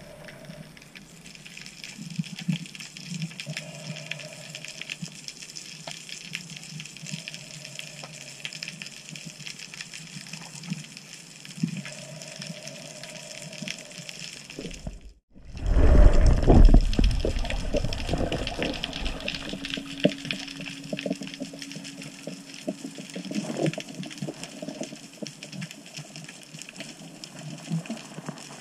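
Underwater sound through a camera housing: a steady hiss of water with fine crackling. After a short break about halfway through, a loud low rush of moving water lasts a couple of seconds.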